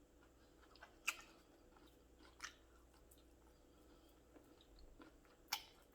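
Faint chewing of food close to the microphone, with a few sharp mouth clicks: one about a second in, one near two and a half seconds, and one near the end.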